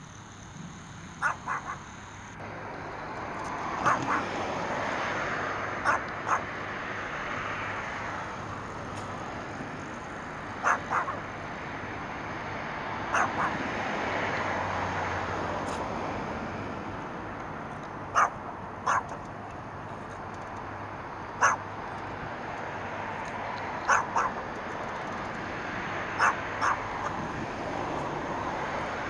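Small chihuahua barking in short, sharp yaps, often two in quick succession, repeated every two to three seconds over a steady background hiss.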